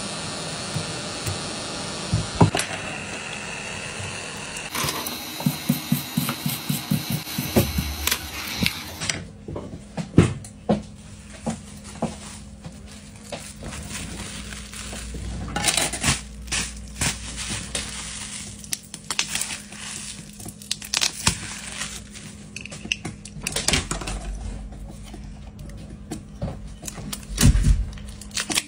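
Phone-repair bench sounds: a steady whirring tool at first, then scattered clicks, knocks and scrapes of tools and broken back-glass pieces, and the crinkle of a plastic bubble bag being handled.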